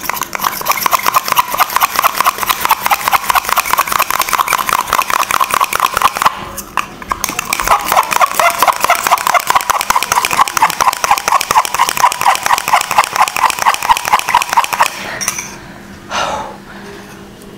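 A teaspoon beating coffee powder, sugar and hot water in a small metal tumbler, clinking rapidly and evenly against the metal as the mix is whipped towards a dalgona cream. The beating pauses briefly about six seconds in and stops about fifteen seconds in.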